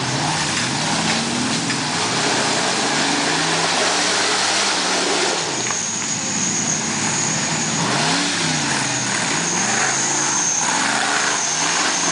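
Rock crawler buggy's engine revving up and down again and again as it crawls over rocks, the pitch rising and falling every second or two. A thin, steady high whine joins about halfway through.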